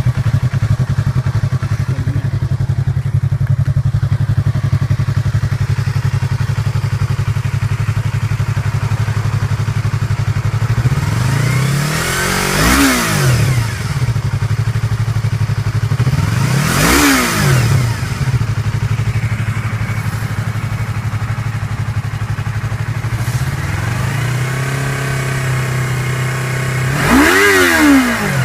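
Yamaha YZF-R3's 321 cc parallel-twin engine on its stock exhaust, idling steadily. About halfway through, the throttle is blipped twice, the revs rising and falling each time, and then twice more in quick succession near the end.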